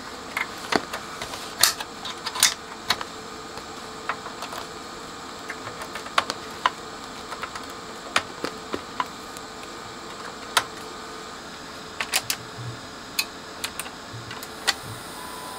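Irregular sharp plastic clicks and snaps as crocodile-clip test leads are unclipped and clipped onto the spring-loaded speaker terminals of an amplifier, with a click near the end as a front-panel speaker button is pressed.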